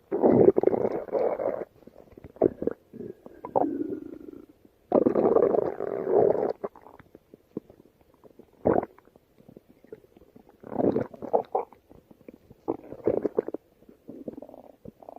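A stomach growling in a string of separate, irregular rumbles of varying length. The loudest come at the very start and about five seconds in, with a short sharp one near the middle and several smaller ones towards the end.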